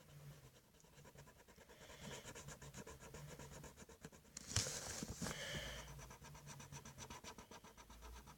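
Black marker rubbing back and forth on paper in quick, faint strokes while colouring in, with one louder brief rustle about four and a half seconds in.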